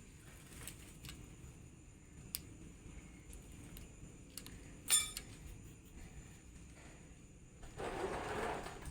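Light metallic clicks and clinks of small steel parts of a Mitsubishi Canter transmission being handled and fitted by hand, a few isolated ticks with the sharpest cluster about five seconds in, then a brief rustle near the end.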